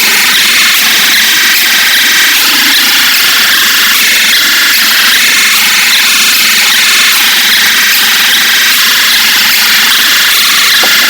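Harsh, distorted electronic alarm of a mock Emergency Alert System broadcast, very loud and unbroken, a dense high-pitched noise with a blocky, shifting texture and no pauses.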